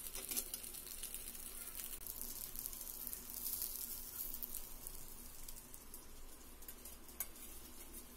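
Marinated chicken leg pieces sizzling and crackling on a hot tawa, with a few sharp clicks of steel tongs against the pan; the sizzle grows quieter near the end.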